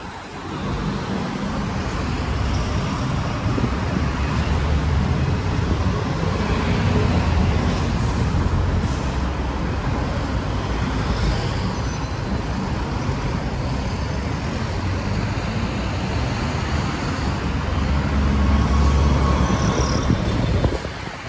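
City buses passing close one after another in heavy traffic, their diesel engines giving a steady low rumble. It swells as buses go by about a third of the way in and again near the end, then drops off suddenly.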